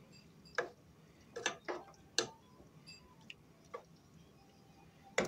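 A white plastic spoon stirring stew in a metal pot, knocking and scraping against the pot's sides: about eight irregular clicks, the last one loudest.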